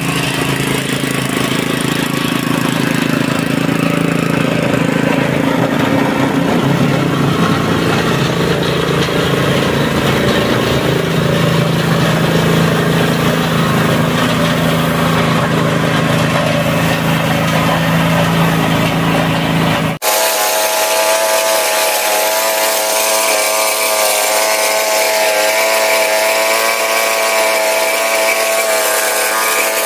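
Small petrol engine driving the air compressor for a paint spray gun, running steadily. About two-thirds of the way in, an abrupt cut switches to a higher, steady whine with no low rumble.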